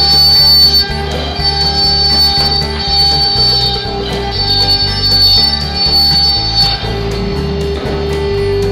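Instrumental background music with a bass line that moves in even steps under long held higher notes.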